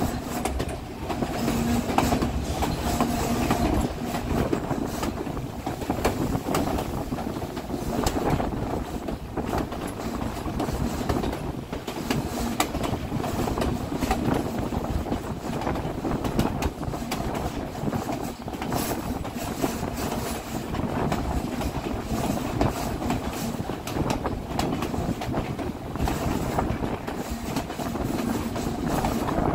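Narrow-gauge White Pass & Yukon Route passenger car rolling along the track: a steady rumble with the wheels clacking over the rail joints.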